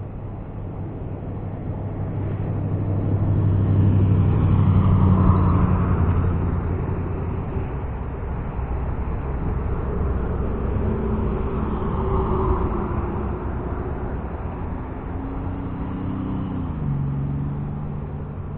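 Road traffic on a shoreline road: vehicles pass, the sound swelling up and fading away twice, about four seconds in and again about twelve seconds in, and an engine drone drops in pitch near the end.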